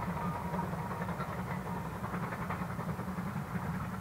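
GWR Large Prairie 2-6-2 tank locomotive No. 4144 working a train in the distance: a steady rumble of steam exhaust and rolling train.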